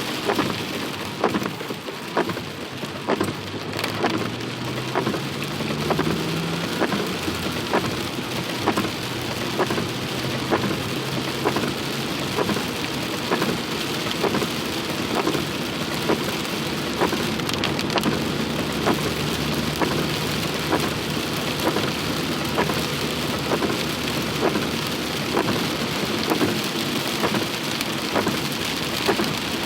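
Heavy rain falling steadily, with a regular ticking a little faster than once a second. Under it a low motor hum rises in pitch over the first few seconds, then holds steady.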